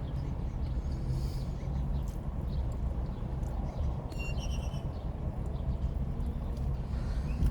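Steady low hum, like a vehicle's engine or cabin noise, with a brief high chirp about four seconds in.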